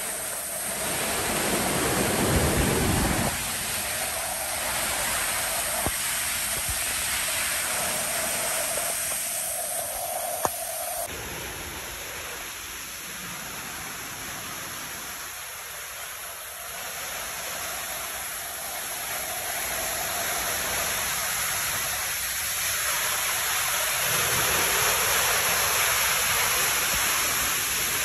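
Swollen waterfall and mountain stream in muddy flood after a cloudburst: a steady, even rush of churning whitewater, with a deeper rumble for a second or two near the start.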